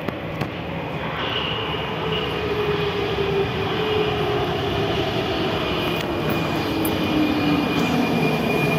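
An 81-71M metro train pulling into the station: a motor whine that falls steadily in pitch as the train slows, with a high steady whistle above it, getting louder as it comes closer.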